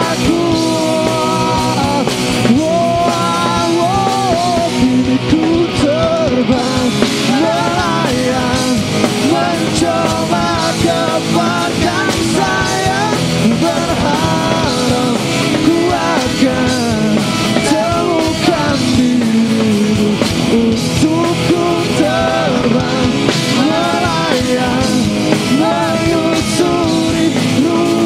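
Live pop-rock band playing through a concert PA: drums, bass and electric guitars, with a wavering lead melody line above them.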